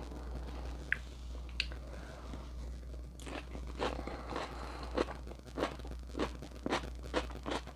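Close-up chewing of a mouthful of grilled steak kebab: irregular wet mouth clicks and smacks, picking up from about three seconds in, after two sharp clicks near the start. A steady low hum runs underneath.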